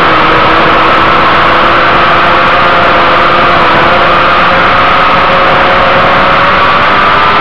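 Inline-four sport motorcycle engine heard from onboard at track speed, revs slowly climbing as it pulls through a bend, under heavy wind rush.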